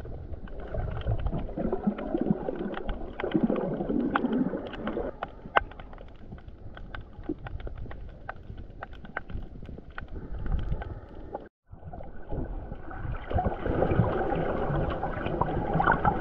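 Muffled underwater water noise picked up by a camera held under water, with many sharp clicks scattered through it. After a brief break about eleven seconds in, louder muffled sloshing follows as a snorkeller swims at the surface.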